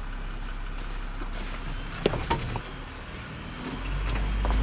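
Jeep Wrangler Rubicon engine idling low, with a few sharp clicks and creaks about two seconds in; near the end the engine pulls harder and louder as the Jeep starts to creep forward onto traction boards under its front tyre.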